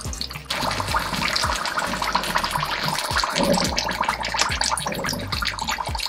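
Egg rolls frying in hot oil in a pan: a loud crackling sizzle that starts suddenly about half a second in and keeps going.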